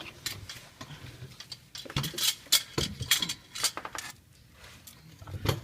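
Scattered metallic clinks, clicks and knocks of hand tools and car parts being handled, irregular, with a cluster of louder knocks around two to three seconds in.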